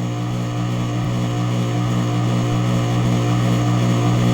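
Geared electric hub motor humming with a steady low drone, stalled instead of turning. This is the fault being chased: the owner suspects a failed Hall sensor or a blown phase transistor in the controller.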